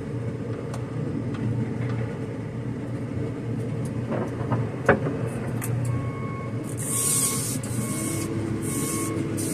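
JCB telehandler's diesel engine running steadily, heard from inside the cab, with a sharp knock about five seconds in. About six seconds in, a warning beeper starts, repeating roughly every 0.7 seconds, joined by bursts of hiss.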